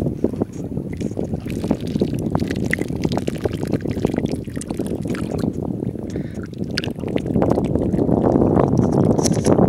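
Thin broth poured from a clay pot through a hand into another clay pot, trickling and splashing onto fish. Under it a steady low rumble of wind on the microphone is the loudest sound, growing a little louder near the end.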